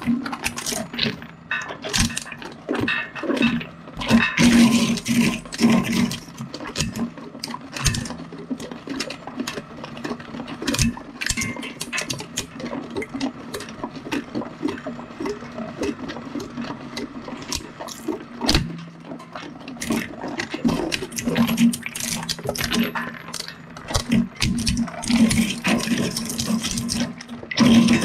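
Twin-shaft industrial shredder chewing on a pair of large Celestron binoculars: irregular cracking and crunching over a steady motor hum. The loudest bursts of cracking come about four seconds in and again near the end.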